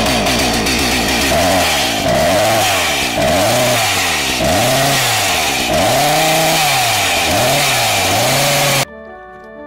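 Gasoline chainsaw revving up and down about once a second, loud and harsh. It cuts off abruptly near the end, and faint music follows.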